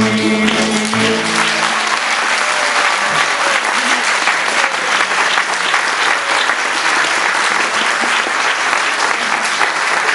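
A tamburica ensemble's final chord rings out for the first second or two, then an audience applauds steadily.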